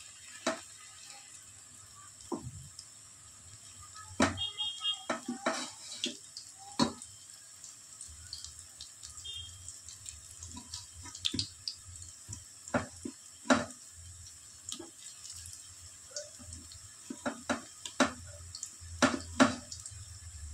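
Potato pakoras frying in hot oil in a kadhai: a steady sizzle with scattered sharp clicks and taps at irregular intervals.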